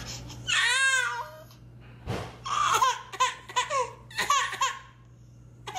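Baby of about six months crying: one long wavering wail about half a second in, then a run of short, broken sobbing cries.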